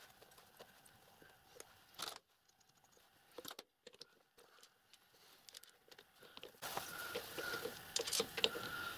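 Light metallic clicks and taps of hands working at a lathe's three-jaw chuck, handling small turned metal parts and the chuck key. About two-thirds of the way through a steady hiss comes up and the clicks grow louder and busier.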